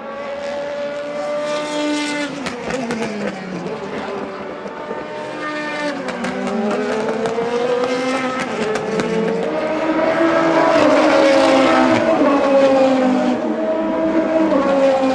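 Several DTM race car engines running at high revs as the cars go by, their pitch rising and falling through gear changes and braking, with overlapping engines. Loudest about ten to twelve seconds in.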